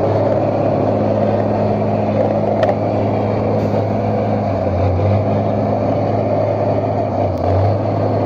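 Ford cargo truck's engine running hard as the truck crawls up a muddy slope, its rear dual wheels churning through the ruts. The engine note sags briefly about halfway through and again near the end, as if lugging under the load.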